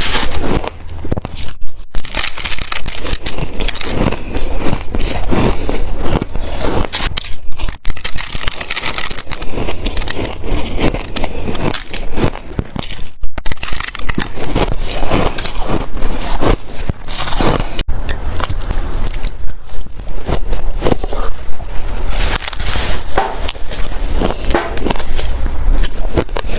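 Shaved ice being bitten and chewed close to the microphone: continuous loud crunching and crackling, a rapid run of sharp crunches with brief pauses between bites.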